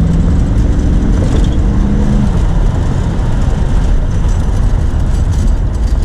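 1993 Corvette's LT1 V8 accelerating under throttle, its note rising for about two seconds and then buried in a loud, steady rush of noise. The engine is running on all eight cylinders, its misfire cured by putting the spark plug wires back in the right firing order.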